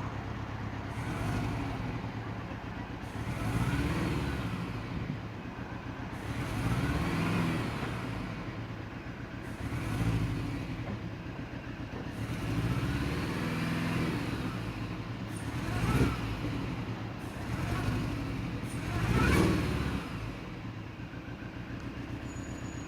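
R53 Mini Cooper S supercharged 1.6-litre four-cylinder engine being blipped over and over, its note rising and falling about eight times before settling back to idle near the end. It is running on three cylinders: cylinder 1 is misfiring, with zero compression.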